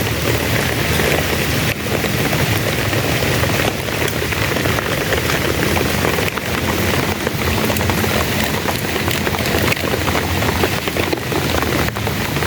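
Heavy rain falling steadily: a dense patter of drops, with a steady low rumble underneath.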